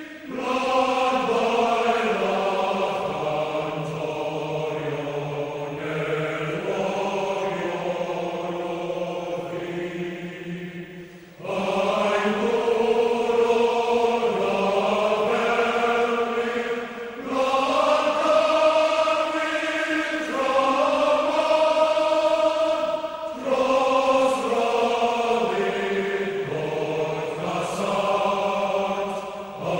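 Devotional mantra chanting, sung in slow melodic phrases of long held notes, with short breaks between phrases.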